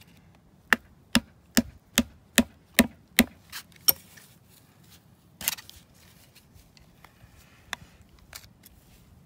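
A hammer tapping a steel punch against the metal outer casing of an old axle knuckle seal: about nine quick, sharp strikes in three seconds, then a louder strike about five and a half seconds in and a few lighter taps near the end. The blows are breaking and folding the seal's casing inward so the seal can be peeled out of the knuckle.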